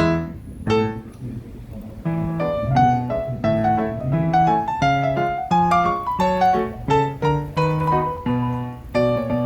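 Background piano music: struck chords over a steady, repeating bass line, with an even rhythm of several notes a second.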